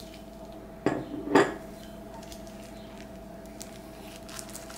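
Kitchen utensil knocking twice against a mixing bowl about a second in, half a second apart, the second knock louder, while ingredients are added to the meat; a faint steady hum runs underneath.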